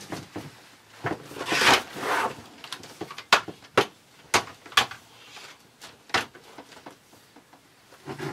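Plastic shower-curtain track and folding curtain being handled and fitted against a wall: a rustling swish about a second and a half in, then a run of sharp plastic clicks and knocks.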